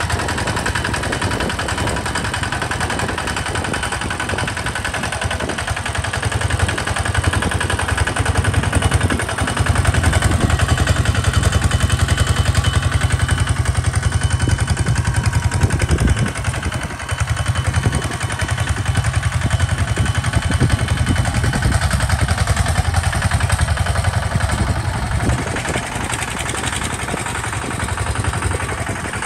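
Two-wheel walking tractor's single-cylinder diesel engine running steadily under load as it pulls a plow through sandy soil, louder for a stretch in the middle.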